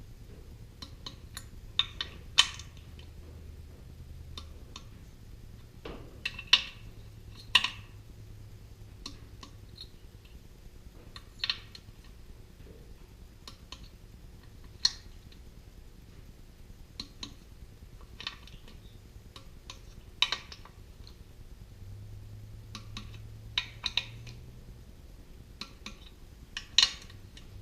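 Click-type torque wrench clicking as Kohler K-series cylinder head bolts are tightened to 30 foot-pounds, with metallic clinks of the socket and wrench on the bolts. Sharp clicks come every few seconds over a low steady hum.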